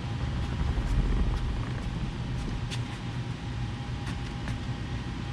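Electric scissor lift running, a steady low hum with a faint steady whine above it.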